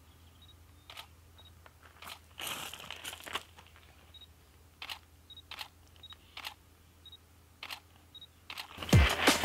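Camera shutter taking single shots: a series of sharp clicks at irregular intervals, with short high beeps between them and a brief rustle about three seconds in. Near the end, electronic music with a heavy bass beat comes in loudly.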